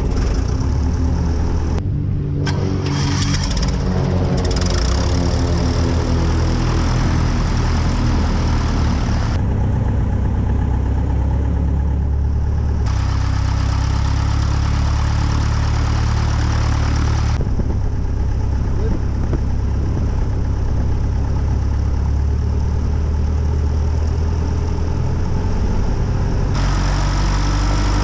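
Aviat Husky's freshly overhauled aircraft engine and propeller running at idle just after starting. The pitch wavers for the first few seconds, then settles into a steady run.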